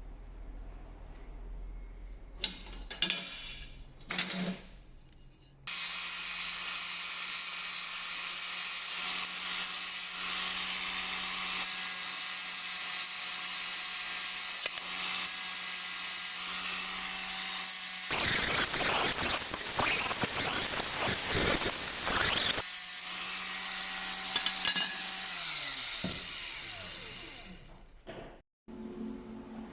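Electric power saw switched on and running at speed, with a louder, rougher stretch of about four seconds midway as it cuts through steel angle. It is then switched off and its motor winds down with a falling tone.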